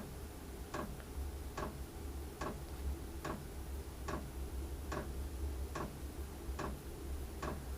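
Chinese diesel air heater starting up: its fuel dosing pump ticks evenly, a little faster than once a second, over the steady low drone of its fan running at high speed. This is the high-speed start-up stage before it settles to a low tick-over.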